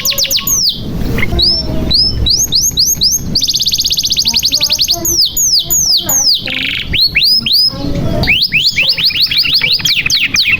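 Domestic canary singing: rapid runs of repeated downward-sweeping high whistled notes, with a fast even trill about three and a half seconds in, then more quick sweeping phrases.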